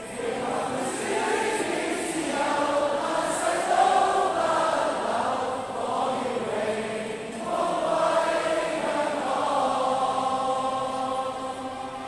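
A crowd singing a song together in unison, in slow phrases of long held notes.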